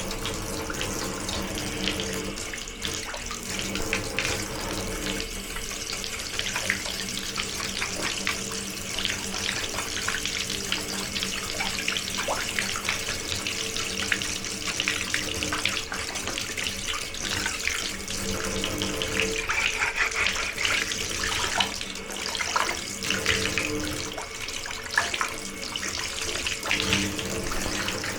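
Water running steadily from a tap, with occasional light clicks and knocks.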